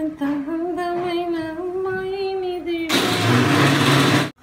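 A single voice holding one long, slightly wavering note for about three seconds, then a burst of loud steady noise that cuts off suddenly.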